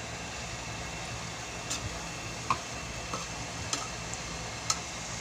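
Santol in coconut milk cooking down in a pan: a steady low hum and hiss, with five or so sharp, irregularly spaced pops as the thickening coconut milk bubbles, reducing until its oil separates.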